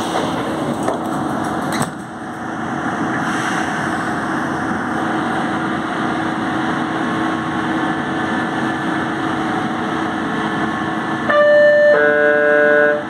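Inside a São Paulo Metro Line 1 train car at a platform: a steady hum of the car's equipment with a low steady tone. About eleven seconds in, the traction motors start up with a louder whine of several tones that step in pitch as the train begins to pull away.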